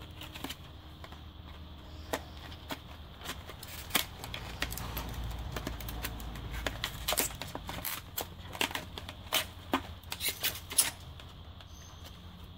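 Stiff plastic packaging being crinkled, cracked and torn by hand in irregular clicks and crackles while a packet of polishing compound is forced open, over a faint steady low hum.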